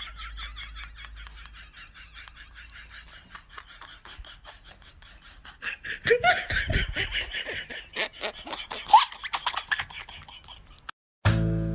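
People laughing and giggling in quick bursts, getting louder about six seconds in. Music starts abruptly just before the end.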